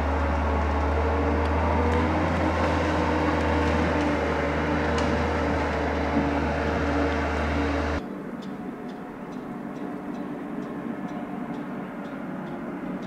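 The NOE 170-6R skidder's 6.7-litre six-cylinder diesel engine running steadily as its crane handles logs. About eight seconds in, the sound drops suddenly to a quieter, thinner machine hum with faint, evenly spaced ticks.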